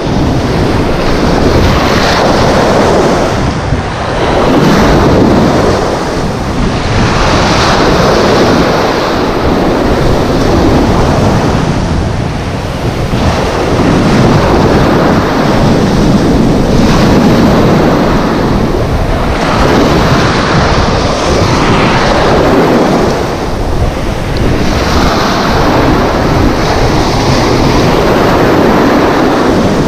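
Sea surf breaking and washing up the beach around the feet, loud and rising and falling in surges every few seconds.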